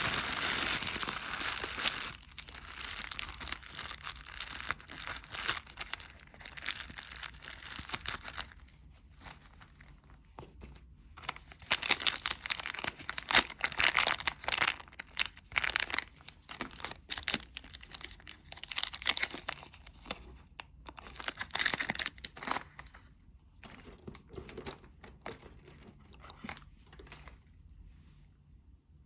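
Crinkling and tearing of crinkly material being handled, in irregular bursts: loudest at the start and through the middle, with a short lull and a fade near the end.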